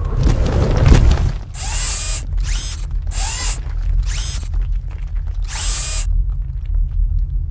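A loud crash of collapsing rock for about the first second and a half, then a steady low rumble that runs on under a character's shouted lines.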